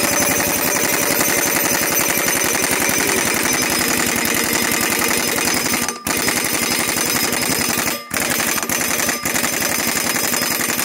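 Pneumatic 1-inch-drive impact wrench hammering rapidly on the crankshaft pulley bolt of a Volkswagen Vanagon waterboxer engine, with short breaks about six, eight and nine seconds in. The bolt is holding fast and has not yet broken loose.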